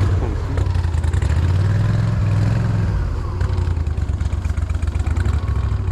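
A boat motor running, its engine speed rising about two seconds in and easing off about a second later, as the boat is backed out.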